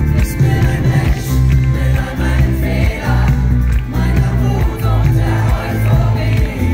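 Live pop band playing loudly through a PA, heavy bass under drums and electric guitar, with voices singing over it. Heard from within the crowd.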